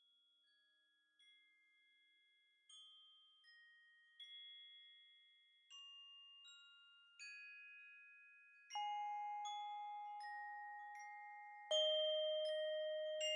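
Intro music of struck, bell-like mallet notes, each ringing on and fading. It starts very faint and grows steadily louder, with deeper, stronger notes joining about nine seconds in and again near the end.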